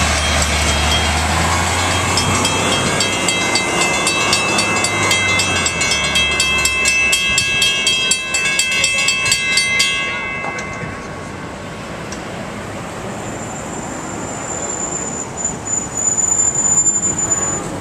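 WC Hayes mechanical railroad crossing bells ringing with rapid, even strokes while the crossing is activated and the gates come down. The bells stop about ten seconds in, once the gates are down. At the start, a box truck's engine rumbles low as it crosses, fading within a few seconds, and there is a louder rush of noise near the end.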